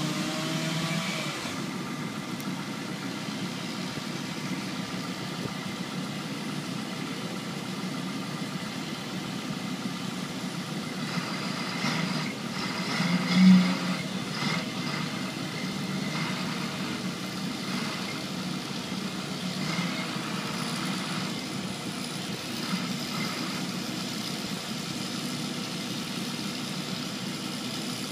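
An engine running steadily at idle, with one short louder sound about halfway through.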